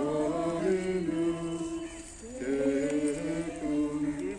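A group of people singing a hymn together, unaccompanied, with slow held notes in two phrases and a short break a little after two seconds in.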